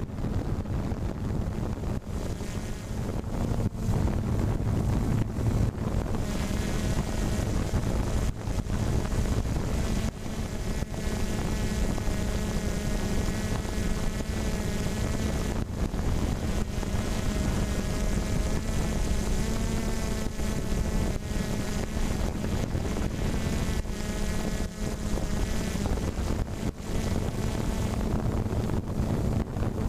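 A steady motor hum with a wavering whine above it, and wind buffeting the microphone.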